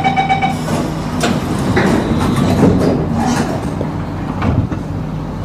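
Singapore MRT train's door warning tone ending about half a second in, then the carriage doors sliding shut with a few knocks and clunks. A steady low hum of the train's running gear follows near the end as it gets ready to pull away.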